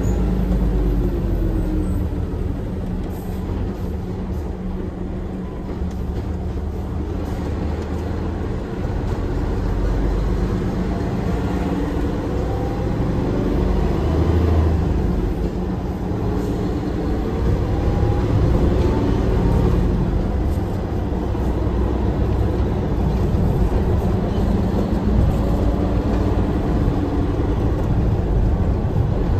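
Hino Profia semi-trailer tractor's diesel engine running under way, heard from inside the cab with road and tyre noise; its pitch rises and falls a little.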